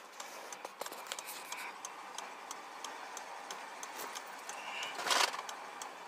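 Light ticking and clicking over a low hiss inside a stopped car, with a louder rustle about five seconds in.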